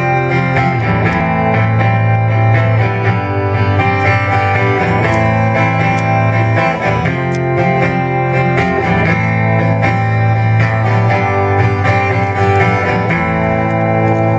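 Acoustic guitars strumming and picking an instrumental passage of a slow country song, with no singing.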